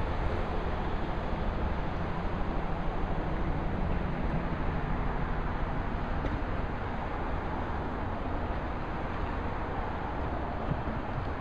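Police cars in a slow procession driving past: a steady rumble of engines and tyres on the road, with wind on the microphone. No sirens are sounding.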